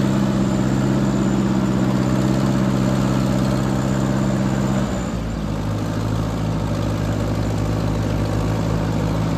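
Vintage Ford tractor engine running steadily at low speed while driving through snow; about five seconds in, the engine note drops to a slightly lower speed and keeps running.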